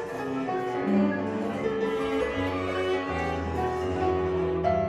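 Contemporary chamber music: a cello bowing sustained notes over low held bass tones, with keyboard, the pitches shifting every second or so.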